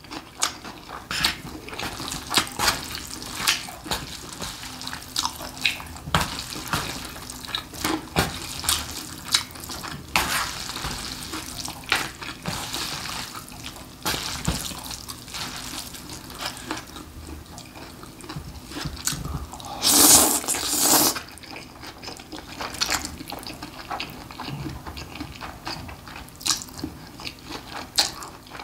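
Close-up wet chewing and slurping of spicy mixed cold noodles, with many short wet clicks and smacks. About two-thirds of the way through comes a louder slurp lasting about a second.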